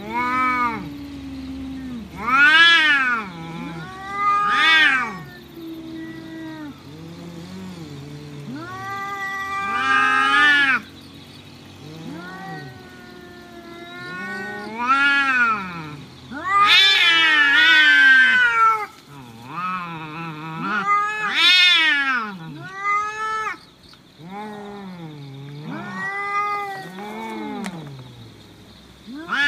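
Two cats yowling at each other in a standoff: long, wavering cries that rise and fall in pitch, one after another, loudest midway. It is the threat yowling that comes before a cat fight.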